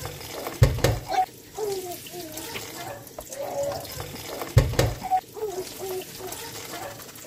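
Background music looping a short melodic phrase about every four seconds, each phrase opening with a low thump, over a steady hiss.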